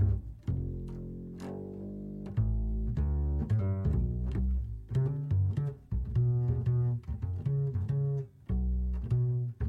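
Music: a run of low-pitched instrumental notes, one after another, each starting sharply.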